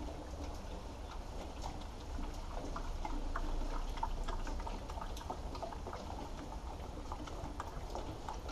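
Water poured from a plastic bottle into the water trough of a wet whetstone grinder, trickling and splashing with small irregular drips. It is heaviest from about two to four and a half seconds in, over a low steady hum.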